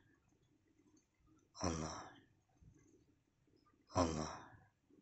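A voice giving a short, falling, sigh-like cry twice, about two and a half seconds apart.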